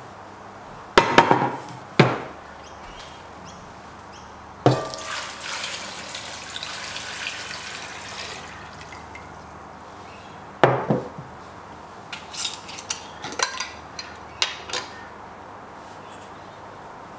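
Water poured from a glass jug into an enamelled cast-iron pot of cut potatoes, a steady splashing hiss for about four seconds. Sharp knocks of things set down on a wooden table come before and after it, the loudest about a second in, and near the end a run of small clinks as a glass salt jar is opened.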